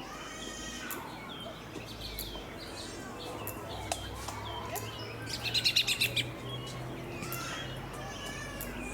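Small birds chirping and calling, with a loud run of about eight quick notes about five and a half seconds in.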